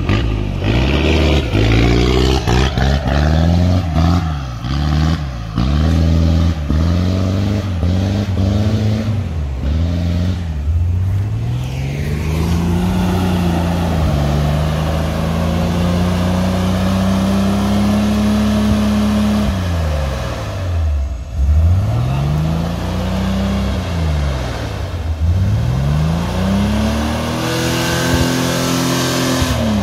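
Off-road vehicle engine revving up and down again and again, the pitch climbing and falling in repeated swells, with one long climb held high near the middle before dropping sharply.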